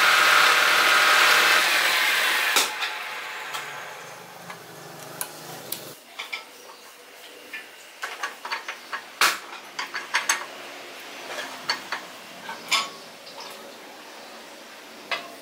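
Wood lathe running down: its motor hum and the sanding hiss fade away over the first few seconds. Then comes a scatter of sharp clicks and light metallic knocks as the wooden vase is handled and remounted between the lathe centres.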